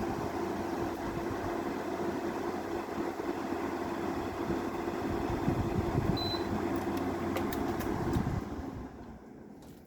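Window air conditioner running with a steady hum from its compressor and fan. A short electronic beep from its control panel sounds about six seconds in, a few clicks follow, and the noise falls away sharply near the end.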